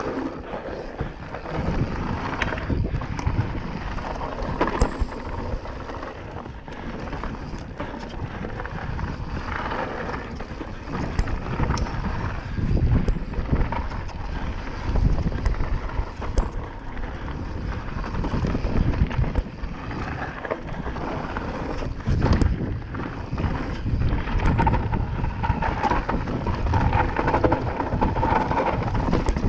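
Enduro mountain bike running fast down a rough gravel trail: tyres rolling over stones and the bike rattling, with scattered sharp knocks and wind rushing over the microphone.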